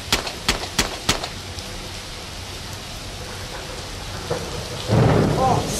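Steady rain, with a few sharp clicks in the first second and a sudden louder rumbling burst near the end.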